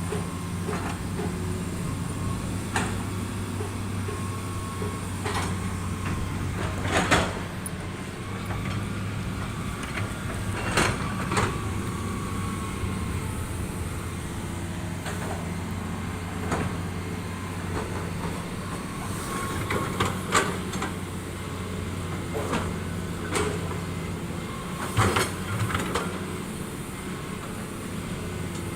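Diesel engine of heavy construction machinery running steadily, with repeated sharp metallic clanks and knocks, the loudest near a quarter of the way in, about two-thirds in and near the end.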